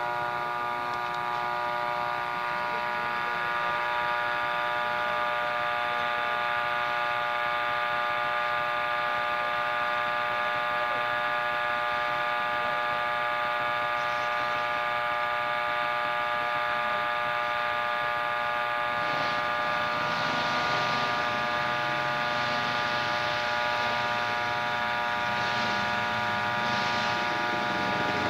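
A small engine running at a steady speed, a drone with an unchanging pitch throughout. In the first half, other engines can be heard faintly rising and falling in pitch behind it.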